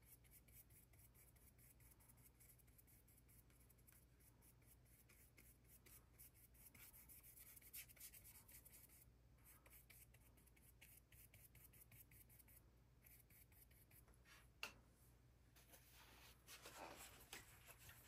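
Faint, quick scratchy strokes of a Rosemary & Co no. 2 long flat brush working oil paint onto a panel, with a single sharp tick and a short spell of louder rubbing near the end.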